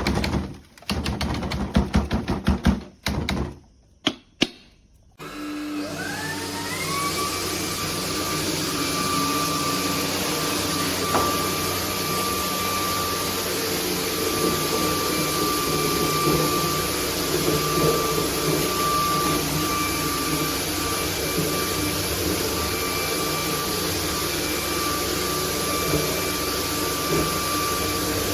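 Bulelink cordless stick vacuum: a few seconds of irregular plastic clicks and knocks, then about five seconds in the motor spins up with a rising whine and runs steadily with a high whine over a rush of air.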